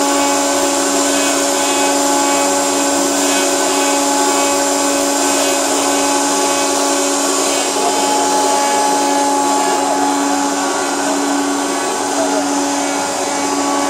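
MFX9512-4A four-spindle copy-milling machine running: its electric motors and belt-driven spindles make a steady whine over a rushing noise.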